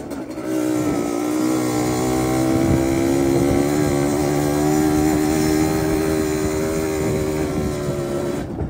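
Yamaha DT two-stroke motorcycle engine pulling under way, picking up revs about half a second in and then holding a steady high note, easing slightly near the end.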